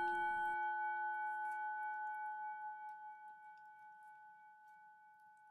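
A struck bell's ring dying away slowly, several clear tones sounding together; the lowest tone fades out about halfway through while the higher ones linger.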